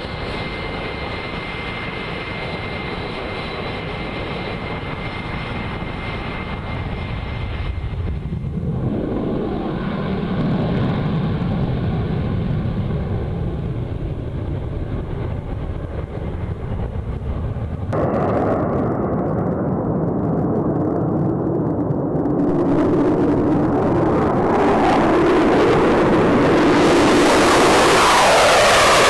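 F-35 fighters' jet engines running: first a steady whine with a thin high tone as the jets taxi, then, after two abrupt changes in the sound, a jet roar that grows steadily louder toward the end as an F-35 flies close by.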